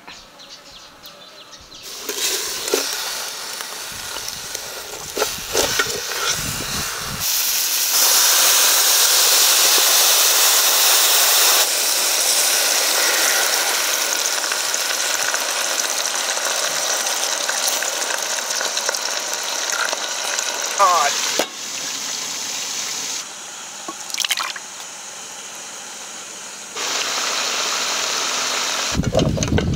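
Steady hissing sizzle of a whole marinated chicken cooking in an aluminium pot over a fire, the liquid in the pot bubbling and spitting. It comes in several cut-together stretches, the loudest about a third of the way in, with a few brief high chirps later on.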